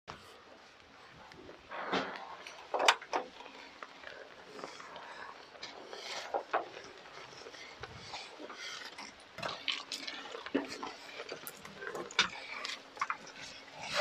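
Scattered light knocks and clicks of shoes and hands on a wheel loader's metal ladder steps and handrails as someone climbs up to the cab, with faint voices and a faint steady hum underneath.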